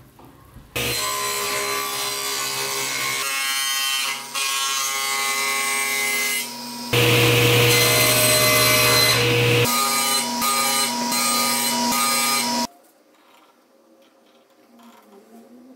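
A table saw runs and cuts a groove into a walnut board, a steady motor hum with a few shifts in pitch and load. It stops abruptly about three-quarters of the way through, leaving only faint scratching.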